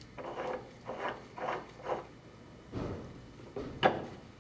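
Steel cage of a control-valve trim being screwed back down onto the stuffing box, heard as several short metallic rubs and scrapes. A sharp clink near the end, the loudest sound, as an adjustable wrench is set on the cage to retighten it.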